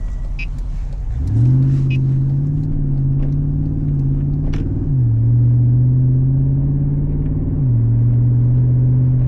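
Jeep SRT8's Hemi V8 accelerating hard under full throttle in manual mode. The engine note climbs about a second in, then drops twice as it upshifts, around the middle and near the end.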